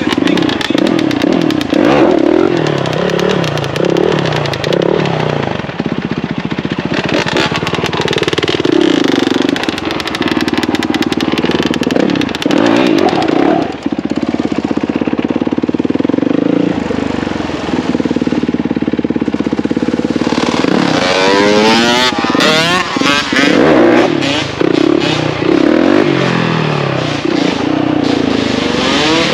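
Motorcycle engine running under way, its pitch rising and falling as it revs and shifts, with a stretch of rapid up-and-down revving about three-quarters of the way through.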